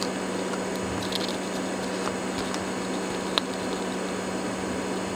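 Steady low hum and hiss of background room noise, with a single faint click about three and a half seconds in.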